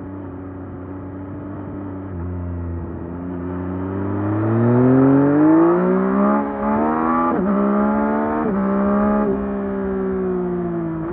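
2024 Yamaha MT-09 SP's 890 cc inline three-cylinder engine on its stock exhaust, heard from the rider's seat: running steadily at low revs, then accelerating with rising pitch from about three seconds in. Several quick upshifts, each a sudden drop in pitch, come between about six and nine seconds in, after which the revs ease slowly down.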